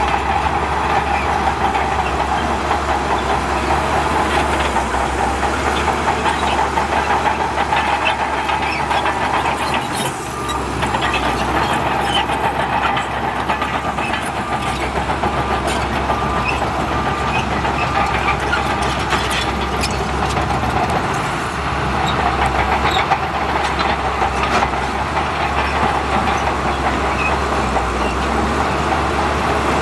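Heavy diesel earthmoving machinery running steadily, with a constant engine drone and metallic clatter, dipping briefly about ten seconds in.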